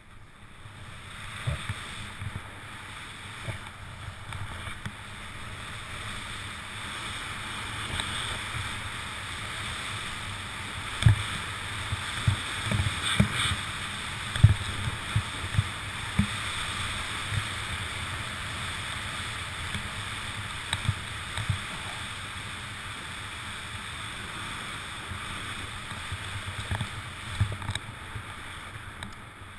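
Steady hiss of snow sliding under a rider descending through off-piste powder, with dull low knocks from bumps in the terrain, most of them between about 11 and 16 seconds in.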